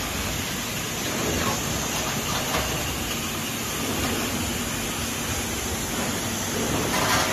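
XSD-6E automatic PET bottle blow moulding machine running: a steady mechanical hiss and din, with a few brief louder bursts, the strongest near the end.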